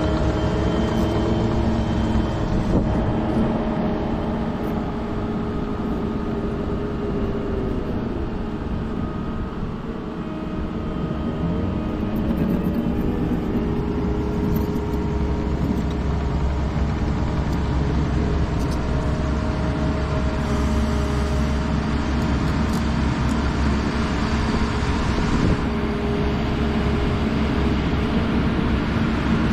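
Diesel engine of a compact construction machine running steadily, with the note easing a little about ten seconds in and picking up again shortly after as the load changes.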